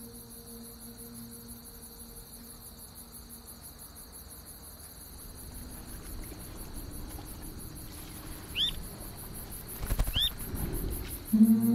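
Steady chirring of insects with an even, rapidly pulsing high buzz; two short bird chirps about a second and a half apart near the end, just before music comes in.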